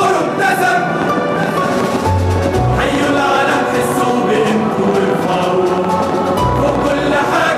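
A choir singing an Arabic patriotic song over instrumental backing, with deep bass notes sounding twice.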